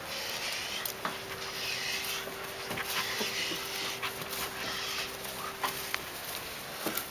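German Shepherd puppy panting in a run of breaths while it tugs at a bite pillow.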